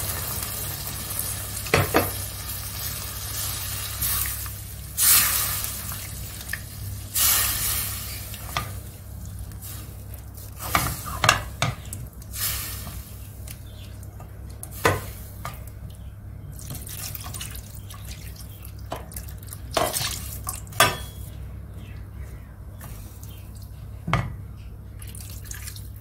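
Kitchen sounds: dishes and cutlery clinking now and then, with a few short bursts of water or pouring, over a steady low hum.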